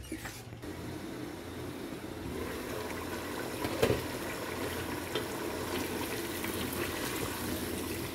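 Nihari meat curry bubbling steadily in an open pot, with scattered sharp pops and clicks, the loudest about four seconds in.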